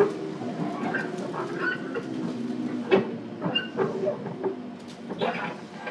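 Inside a JR Kyushu 415 series (1500 subseries) electric train car: a steady hum of several low tones, broken by a sharp knock at the start and another about three seconds in, with brief higher squeals.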